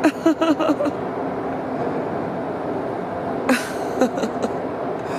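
A person laughs briefly near the start and makes another short vocal sound about three and a half seconds in, over steady background noise.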